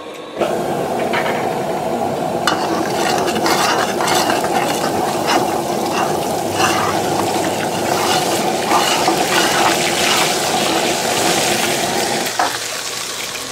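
Oil and pan juices sizzling in a hot wok while a steel wok spatula stirs and scrapes against the metal, over the steady roar of a high-output gas wok burner. The steady part drops away about a second before the end.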